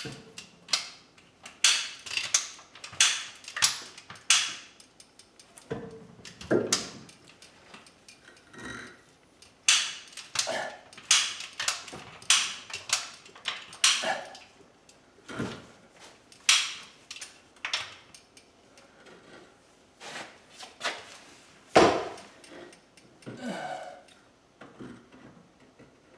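A lever chain hoist being worked in reverse to lower a load: a run of irregular metallic clicks and clanks from the ratchet and chain, roughly one a second.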